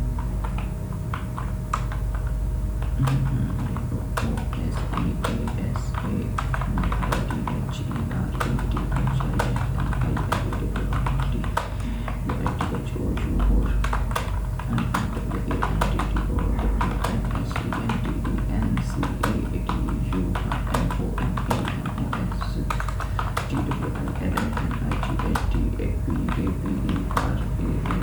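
Computer keyboard being typed on fast and continuously during a timed typing test: a dense, uneven stream of key clicks, several a second, over a faint steady hum.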